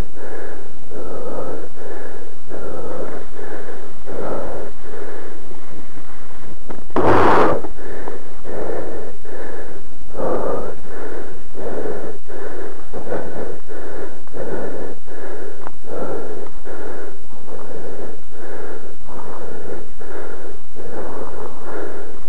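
Heavy, rhythmic panting of a person exerting themselves on a run, close to the microphone, about two breaths a second. About seven seconds in comes one louder, rougher blast of breath.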